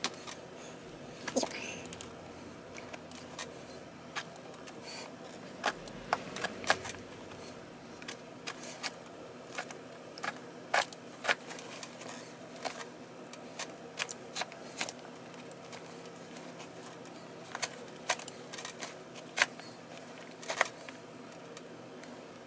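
Steel pliers clicking and leather lace scraping as the old lacing is pulled out of a Mizuno baseball glove's trap-eze web: irregular sharp clicks, sometimes two or three close together, over a faint steady hum.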